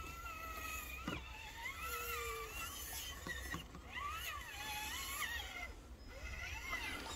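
Traxxas TRX-4 Defender RC crawler's electric motor and gearbox whining, the pitch sweeping up and down as the throttle changes.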